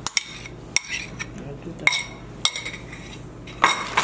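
A metal spoon scraping and clinking against a ceramic bowl as beaten eggs are tipped into a stainless-steel mixing bowl. There are about five sharp clinks with short ringing, and a louder clatter near the end.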